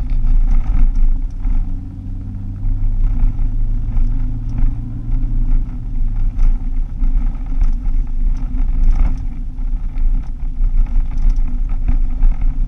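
Car driving on an unsealed dirt road, heard from inside the cabin. Low road rumble runs throughout, with scattered clicks and rattles. A steady engine hum drops away about halfway through.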